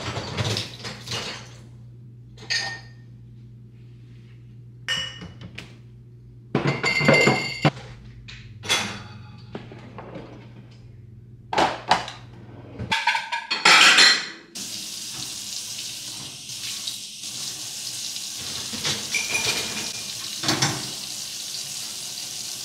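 Dishes and metal utensils clinking and clattering as a dishwasher is unloaded and cutlery goes into a kitchen drawer. About fourteen seconds in, the kitchen tap turns on and water runs steadily into a stainless-steel sink, with more clinks over it.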